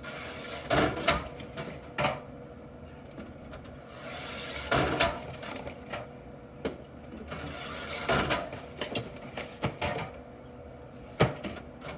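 Aluminium pop cans being handled and stacked into a vending machine's drink columns: irregular clunks and metallic clinks, about a dozen, over a faint steady hum.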